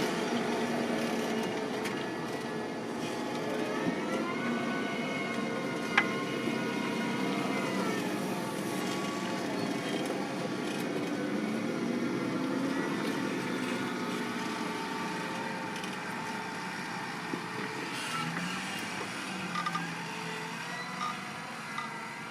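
Fendt 724 Vario tractor's six-cylinder diesel engine running under load while pulling a Lemken plough. Its pitch rises about four seconds in, and it grows gradually fainter toward the end.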